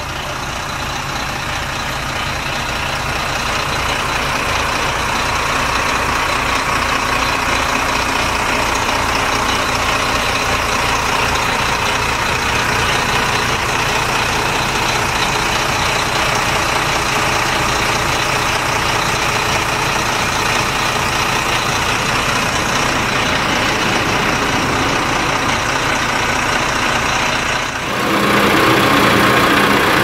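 Volvo B9R bus's rear-mounted inline-six diesel engine idling steadily, heard close up through the open engine hatch and getting louder over the first few seconds. Near the end it cuts to a Volvo B11R's inline-six diesel idling, with a different, deeper tone.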